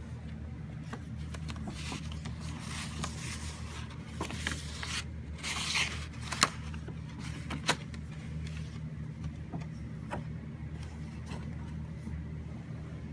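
Rustling swishes and sharp clicks of packaging being handled, busiest in the middle with two sharp clicks near the end of that stretch, over a steady low hum.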